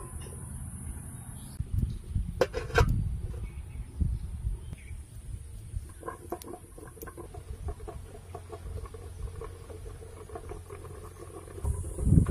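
Metal lid set onto a metal wok with a short clatter about two and a half seconds in, over a low steady rumble.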